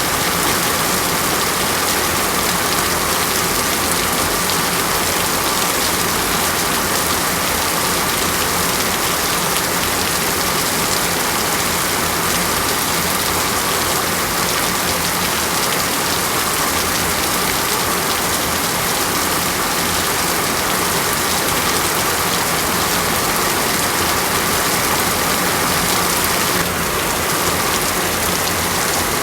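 Steady heavy rain falling and pattering on a surface, an even unbroken wash of sound whose texture shifts slightly near the end.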